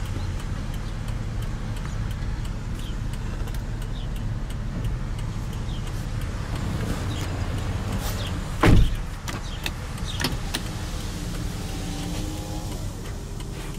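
A Lexus RX350's 3.5-litre V6 idles steadily. The driver's door shuts with one loud thump about nine seconds in. A power window motor then whines steadily for about three seconds near the end.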